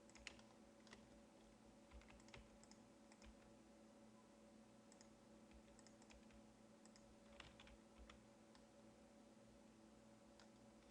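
Faint, scattered clicks of a computer keyboard and mouse, a few a second at most with long gaps, over a steady low electrical hum.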